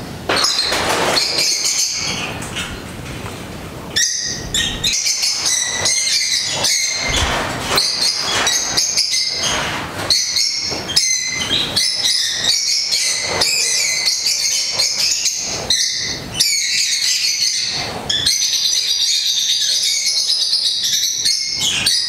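A flock of peach-faced lovebirds chattering, many birds calling at once in continuous shrill, high chirps.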